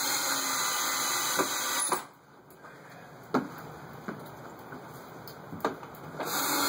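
Cordless power driver running twice for about two seconds each, near the start and again near the end, driving wood screws through a new steel door hinge into the wood. A few sharp knocks come in the quieter gap between.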